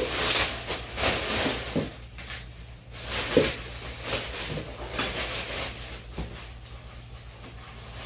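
Packaging being rustled and pulled open by hand as an item is unwrapped, with small knocks of handling. It is loudest in the first two seconds and again about three seconds in, then quieter.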